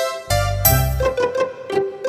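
Instrumental interlude of a Malayalam Christian devotional song, with no singing: short plucked notes repeating a few times a second, and a fuller chord with a strong bass note about a third of a second in.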